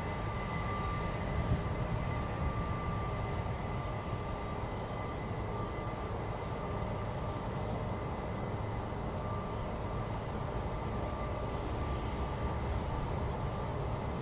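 Distant jet engines of a Boeing 767-300ER rolling out after landing: a steady low rumble with a faint, steady high whine. High above it, insects chirp in a fast, even pulse.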